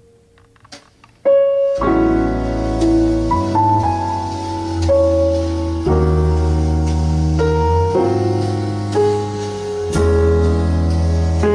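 Solo piano playing slow, sustained chords, the intro of a recorded song played back over a vintage Luxman LUXKIT A3500 tube amplifier and Quad S1 loudspeakers. It comes in suddenly about a second in after near silence.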